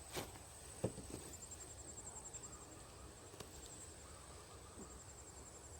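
Insects calling: a steady high buzz with stretches of rapid chirping that start and stop. Two soft knocks come in the first second.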